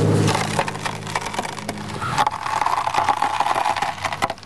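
Wood splitting along its grain as a froe is twisted and levered through a log in a riving brake to rive off a clapboard. A low creak at first, then from about two seconds in a dense run of crackling and tearing as the split runs down the board.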